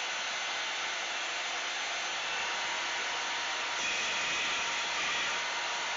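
Ryobi benchtop belt sander running steadily. From about four seconds in to five and a half it gets slightly louder, with an added higher-pitched tone.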